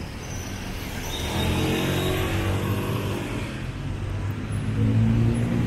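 City street traffic with a motor vehicle's engine running close by, its pitch shifting a second or two in, then steadying and growing louder near the end.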